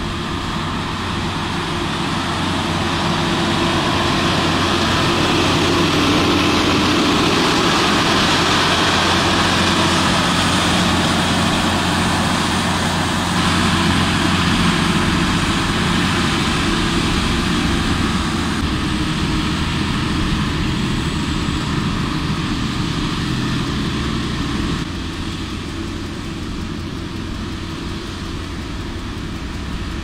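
Motor grader's diesel engine running steadily while its blades push and scrape snow along the road, with a continuous hiss of snow and blade over the engine. It grows louder over the first few seconds and drops in level about three-quarters of the way through.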